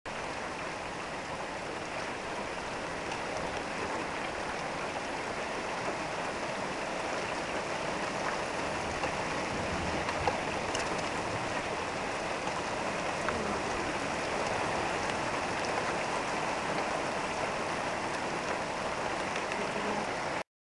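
Heavy rain falling steadily: an even hiss with a few faint ticks of drops.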